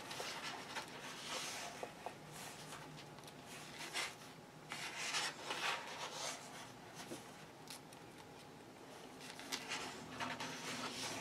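Paper pages of a paperback coloring book being turned and smoothed flat by hand: a series of soft rustles and rubs, a few of them louder swishes.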